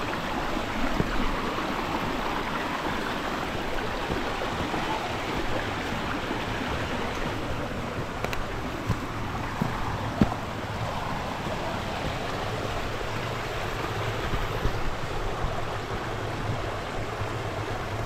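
A stream's water rushing steadily in an even, unbroken wash, with a single sharp knock about ten seconds in.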